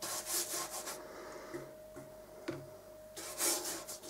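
A large wet mop brush swept across Saunders Waterford watercolour paper, each stroke a soft rubbing swish, as the sheet is wetted with clean water for the sky. A short tick about two and a half seconds in.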